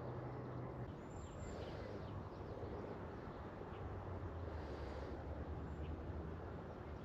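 Quiet outdoor ambience: a faint steady low hum under an even background hiss, with a few short, faint bird chirps.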